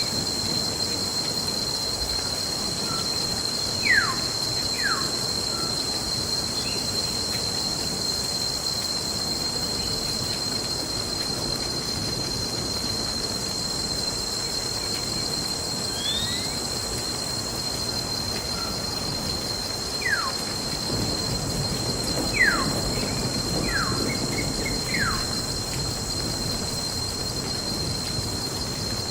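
Nature ambience of steady rain with a constant high insect trill. A few quick downward-sliding bird whistles come through it: a pair about four seconds in and four more from about twenty seconds in.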